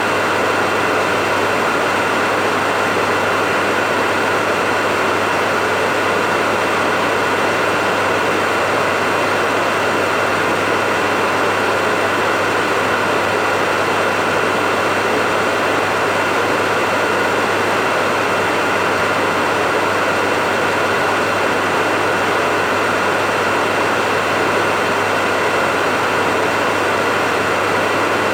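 Hair dryer running steadily: a constant rush of blown air over an even motor hum and a steady high whine.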